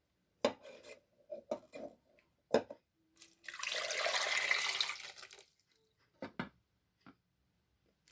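Kitchen tap running for about two seconds near the middle, with a few short knocks and clatters before and after it.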